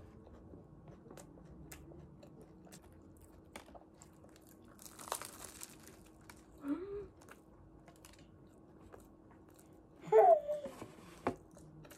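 Quiet eating sounds: small crunches and clicks of chewing crunchy food, with a brief rustle about five seconds in. Two short voice sounds break in, the louder about ten seconds in, over a faint steady hum.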